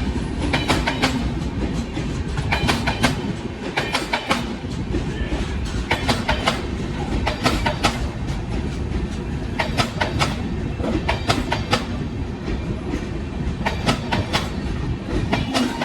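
Indian Railways passenger coaches passing at speed, their wheels clicking over rail joints in paired clicks every one to two seconds over a steady rumble.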